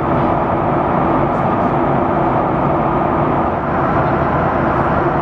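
Steady roar of engine and airflow noise inside the cabin of a Boeing 737-900ER in flight, heard at a window seat near the wing and its CFM56 engine.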